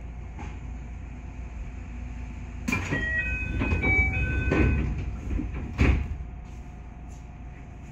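JR 221 series electric train running, a steady low rumble heard from on board. About three seconds in it gets louder for some three seconds, with clattering knocks and several high held squeals at different pitches, ending in a sharp knock.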